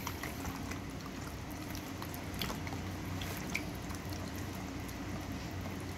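Raw chicken wings being tossed and mixed in a liquid marinade in a pan: faint wet sloshing and dripping with scattered small clicks, over a low steady hum.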